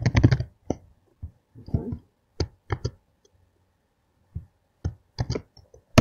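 Scattered keystrokes and clicks on a computer keyboard and mouse: single sharp taps and short runs of two or three, with pauses between, the loudest click at the very end.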